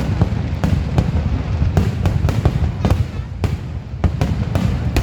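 Aerial fireworks going off in quick succession: many sharp bangs a few tenths of a second apart over a steady low rumble.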